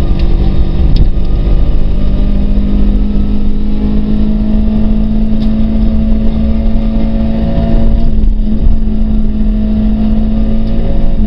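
Peugeot 306 Rallye's two-litre four-cylinder engine heard from inside the cabin, pulling hard at high revs with its pitch holding nearly level, over road and tyre noise.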